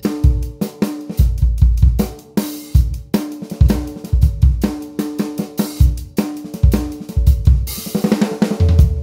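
Drum kit playing a steady groove on a 14x6.5 copper snare drum, with spun copper bass drum and toms and UFIP cymbals, the drums ringing under the strokes. Near the end a cymbal crash and a quick run of strokes lead into a final hit that rings on.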